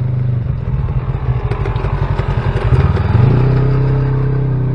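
Side-by-side UTV engine running over a rough, leaf-covered dirt trail, its sound choppy with rattling and clatter over the bumps, then rising quickly to a steady drone about three seconds in as it picks up speed.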